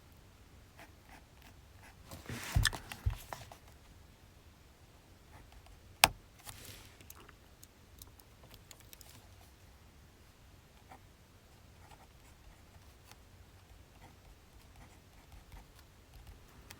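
Quiet desk sounds of writing and handling paper: a short burst of rustling and knocks about two to three seconds in, then one sharp click about six seconds in, the loudest sound, followed by faint scratching and small ticks.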